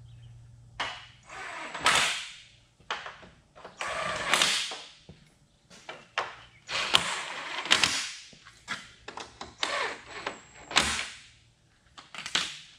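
Impact gun run in a series of short, irregular bursts, tightening the bolts on a radiator and fan shroud assembly.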